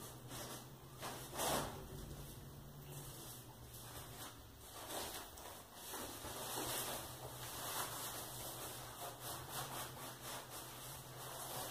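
Wood fire burning inside a closed stove: faint, irregular crackling and rustling, with one louder crackle about a second and a half in, over a low steady hum.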